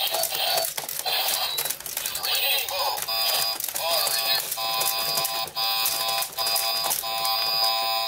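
Joystick-controlled boxing robot toy in a bout: the plastic robots clack and rattle with rapid punches, over the toy's electronic fight sound effects. Short bleeps slide in pitch, then a steady beeping tone comes in about three seconds in.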